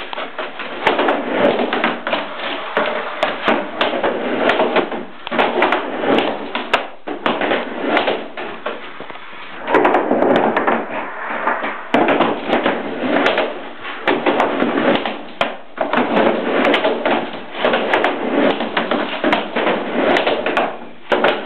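Skateboard rolling back and forth on a plywood ramp: the wheels rumble on the wood in swells that rise and fade every second or two, with many sharp knocks and clacks of the board hitting the plywood.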